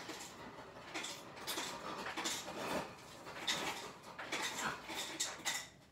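Ice cubes and a glass clinking and clattering as they are handled, in irregular clinks with a short ring.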